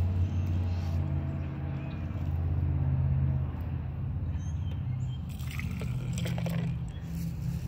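A steady low engine hum, like a motor vehicle running, with evenly spaced low tones throughout. A little past halfway, liquid is poured from a plastic measuring cup into a plastic-brick volcano model, with a few short sharper sounds.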